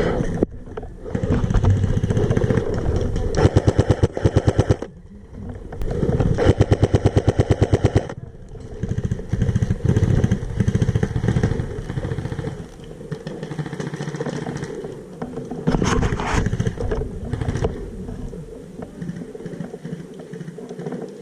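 Airsoft electric M4 carbine replica with electric recoil firing several rapid full-auto bursts, each a fast even rattle of shots lasting a second or two.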